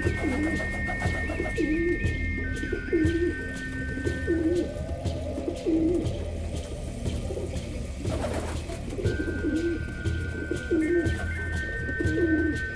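Pigeons cooing over and over, a low warbling coo about once a second, with a short rustling burst about eight seconds in. Background music with held high notes plays under the coos.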